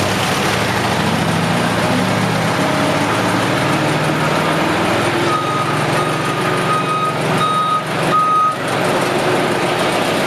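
Steady engine rumble of ramp vehicles and the airliner, with a ground vehicle's reversing alarm beeping on one high pitch, about seven beeps, from about halfway through for some three seconds.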